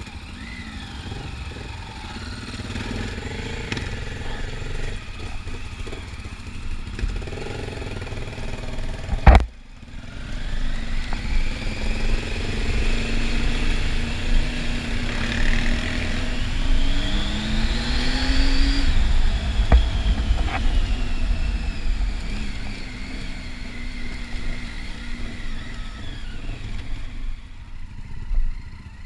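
Triumph adventure motorcycle's engine running under way, rising in pitch as it revs up a couple of times and easing off. A single sharp click about nine seconds in, the loudest moment, followed by a brief drop in sound.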